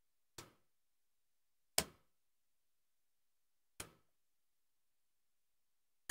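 Four small, separate clicks one to two seconds apart, the loudest a little under two seconds in: the lens ring of a Yashica Electro 35 MG-1 rangefinder being turned into its click stops.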